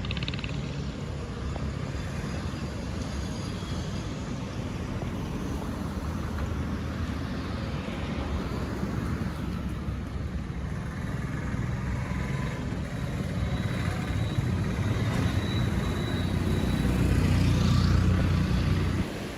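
Sea surf washing onto a beach, with wind buffeting the microphone and giving a heavy low rumble. The rumble swells toward the end and then drops off suddenly.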